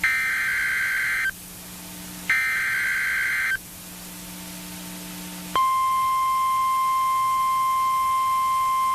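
NOAA Weather Radio emergency alert: the last two of its three SAME digital header bursts, each a buzzing data squawk of about a second with a second's pause between. About five and a half seconds in, the steady 1050 Hz warning alarm tone starts and holds, signalling that a warning broadcast follows.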